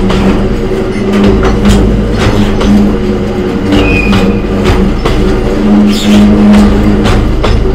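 Red Hoki 2000 limestone hopper wagons of a freight train rolling past close by, their wheels knocking over the rail joints in an uneven stream of clacks over a steady low drone. A brief high squeal comes about four seconds in.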